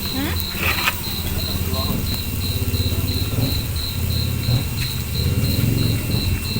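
A cricket chirping steadily, about four high chirps a second, over a low background rumble and faint voices.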